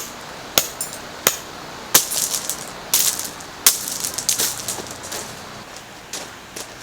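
A series of sharp clinks and clatters from hard objects being handled: about six distinct knocks, some followed by a short rattle, thinning out toward the end.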